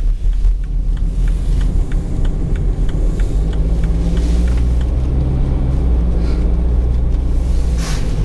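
Car cabin noise while driving: a steady low engine and road rumble, with a light regular ticking about three times a second through the first half and a short rustle near the end.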